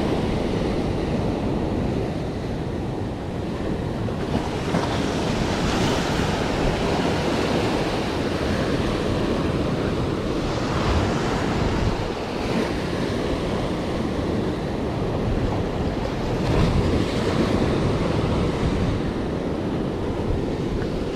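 Surf washing and foaming over a rocky shoreline, with the noise of the waves swelling in a surge every few seconds.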